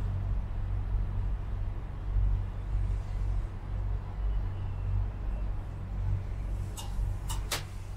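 Steady low rumble inside a moving cable car cabin as it travels along the cable, with three sharp clicks close together near the end.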